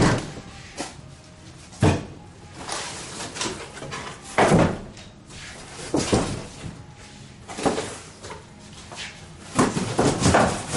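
Cardboard packing pieces being tossed into a large empty cardboard box and the box handled, giving a series of separate knocks about every second or two.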